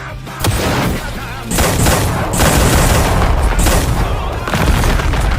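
Dubbed-in anime fight sound effects: a dense, rapid barrage of hits and booms. It starts about half a second in and becomes louder and nearly continuous about a second and a half in.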